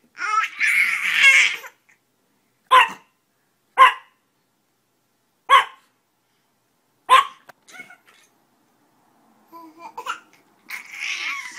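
A small dog giving single sharp yaps about every one to two seconds, with a baby's giggling laughter at the start and again near the end.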